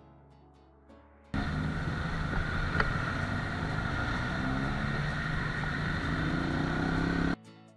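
Small single-cylinder motorcycle engine running under way, heard from the rider's seat with wind noise over the microphone. It starts abruptly about a second in, the engine note climbs near the end as the bike speeds up, and the sound cuts off suddenly just before the end.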